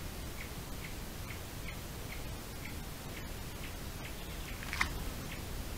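A steady series of short, high ticks repeating evenly, a little over two a second, over a low steady hiss. One sharper, louder click comes near the end.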